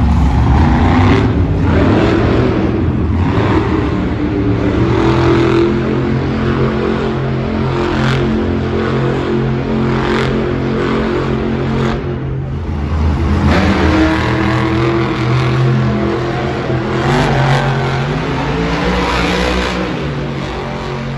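Monster trucks' supercharged V8 engines revving hard while spinning donuts in dirt, the pitch repeatedly rising and falling as the throttle is worked. A short drop about halfway through, then a second truck's engine revs.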